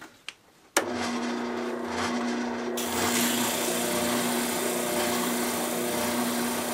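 Oscillating spindle sander switched on about a second in and running with a steady motor hum. From about three seconds in, a rasping is added as the maple-and-ebony banjo bridge blank is pressed against the sanding drum to round its corners.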